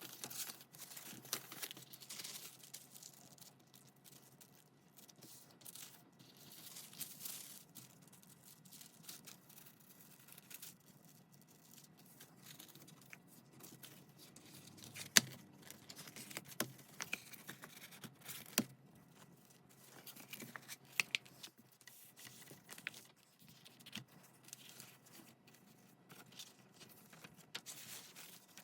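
Paper being handled: faint, irregular rustling and crinkling, with scattered light taps and clicks. The sharpest click comes about halfway through.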